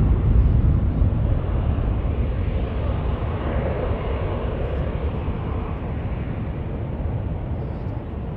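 Boeing 747 freighter's four jet engines at takeoff thrust as it lifts off: a deep, steady rumble that slowly fades as the plane climbs away.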